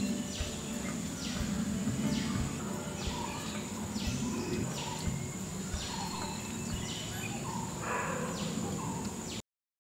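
Tropical garden ambience: a bird call repeating about once a second over a steady high insect drone. It cuts off suddenly near the end.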